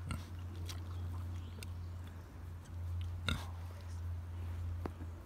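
A pig chewing at a hand held to its snout: scattered small crunching clicks, one louder about three seconds in, over a steady low hum.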